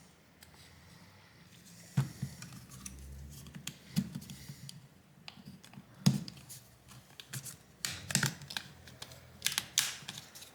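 Scattered sharp plastic clicks and taps of a pry tool working a plastic cover loose from a smartphone's frame, about every two seconds at first and more often near the end.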